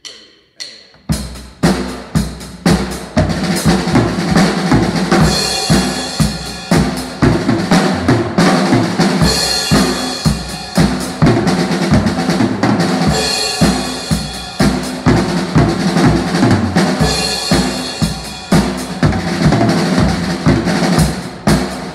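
A drum kit is played with two clicks of a stick count-in in the first second. Then comes a continuous run of paradiddle patterns, single and double strokes mixed across snare, toms and bass drum, with cymbal crashes about every four seconds.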